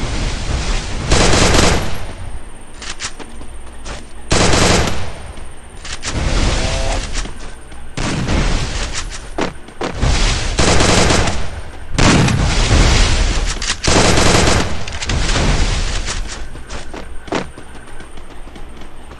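Video game gunfire: repeated loud bursts of rapid shots every second or two, with single shots between them.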